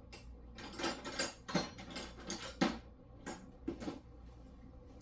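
Metal hand tools and sockets clinking and rattling as they are handled: a string of about six short clatters over the first four seconds.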